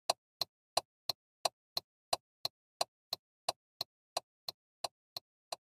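Car turn signal (indicator flasher) clicking steadily, about three clicks a second, growing slightly fainter toward the end.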